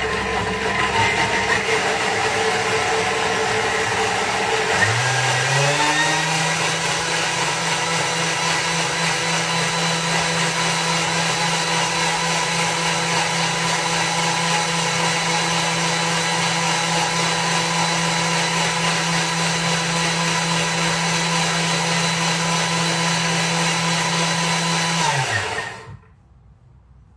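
Thermomix blending a thin liquid mix of nut milk, fruit and dates. The motor steps up in speed about five seconds in, runs steadily at that speed, then winds down in pitch and stops near the end.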